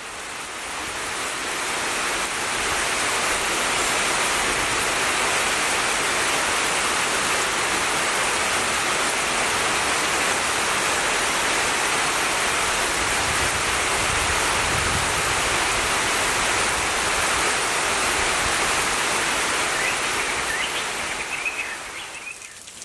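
Heavy rain falling in a steady, dense hiss that eases off near the end, when a few short high notes come through.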